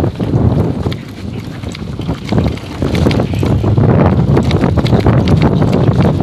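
Wind buffeting the microphone: a low rumble with irregular crackling gusts, growing louder about three seconds in.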